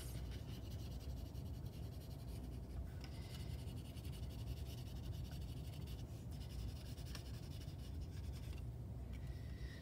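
Faint rubbing and scratching of a Crayola felt-tip marker being worked across a styrofoam printing plate, over a steady low hum.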